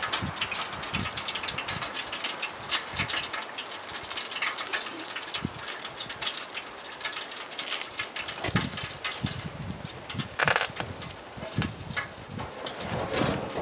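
Hot peanut oil crackling and dripping as a deep-fried turkey drains on its rack over the fryer pot. There are a few knocks as the rack is lifted away, the loudest near the end.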